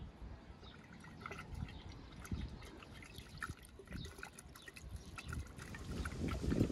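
A wooden stick stirring liquid in a glass pitcher: quiet wet sloshing with many small clicks and taps of the stick against the glass.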